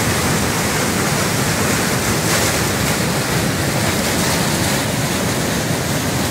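River waterfall: whitewater crashing over rocks in a loud, steady rush.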